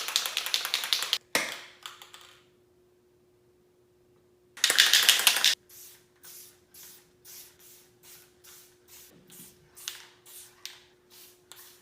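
Aerosol spray paint can in use: two loud hissing bursts of spray, one at the start and one about five seconds in, then a run of short, quieter bursts about two a second.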